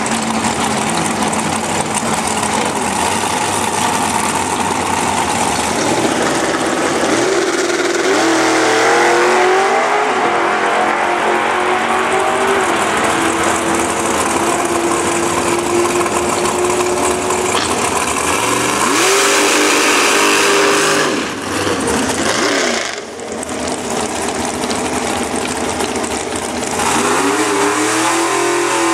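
Drag race car engine running loud and rough at the starting line, revved up several times with the pitch climbing and falling. About two-thirds through there are a couple of seconds of rushing noise, then the revs drop and rise again near the end.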